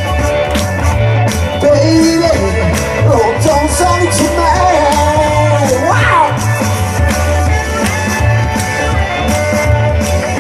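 Live rock music: a male vocalist singing into a microphone over a pulsing bass line and steady drum beat. About six seconds in, a sharp upward slide in pitch cuts through.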